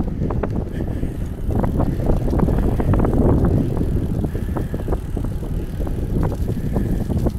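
Bicycle riding along an asphalt street: wind buffeting the handlebar-mounted camera's microphone over a steady low rumble, with scattered small clicks and rattles from the bike.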